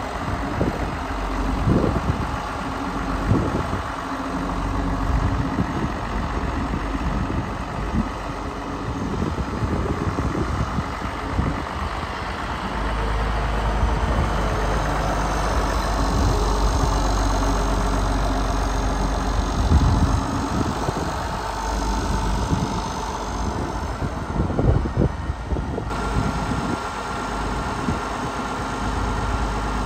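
International Harvester 1466 tractor's turbocharged six-cylinder diesel engine running steadily as the tractor drives around on gravel, then idling after about 26 seconds.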